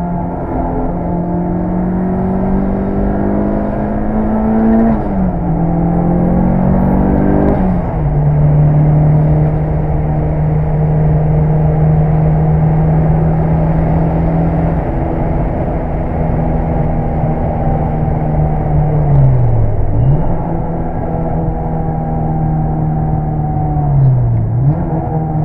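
Mitsubishi Lancer Evolution VI Tommi Makinen Edition's turbocharged 4G63 four-cylinder engine running hard under load. Revs climb for the first several seconds, drop about eight seconds in and then hold steady, with two brief dips in revs near the end.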